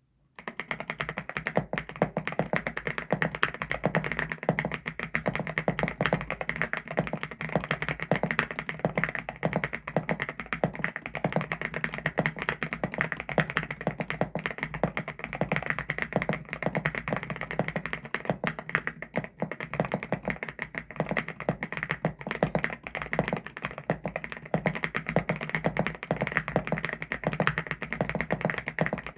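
Continuous fast typing on a CIDOO ABM081 Stellar mechanical keyboard with CIDOO Carda switches: a dense, steady run of keystroke clacks.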